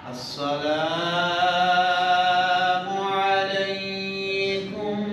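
An imam's voice chanting a long, drawn-out phrase of the congregational prayer, held on slowly sliding pitches for about four seconds, with a short new phrase beginning near the end.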